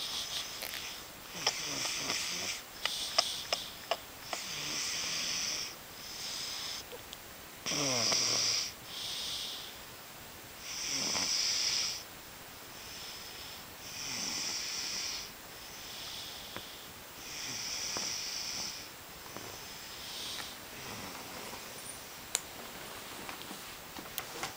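Heavy snoring: a rasping snore on each breath, the loudest roughly every three seconds, growing quieter in the last few seconds.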